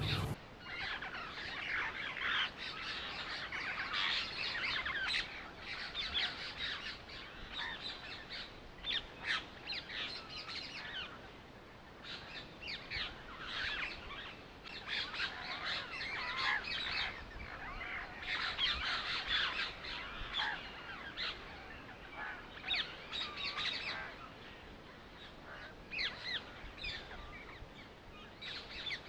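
Birds chirping and twittering, many short overlapping calls in quick bursts that come and go.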